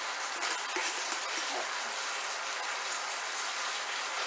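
Aromatics sizzling steadily as they sauté in a hot pan beside the chicken in its soy and vinegar sauce, with a few light clicks in the first second and a half.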